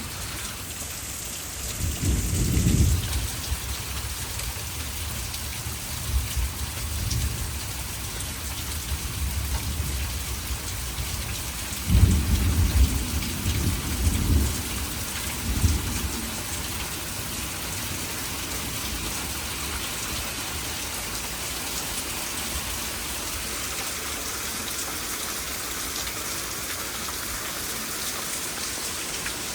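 Heavy rain pouring steadily, with rolls of thunder: a short rumble about two seconds in, fainter rumbles a few seconds later, and the loudest, longest roll around the middle before the rain carries on alone.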